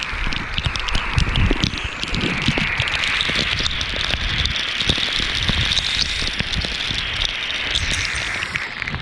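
Waterfall's water falling and splashing into the pool: a steady hiss dense with fine crackling drops.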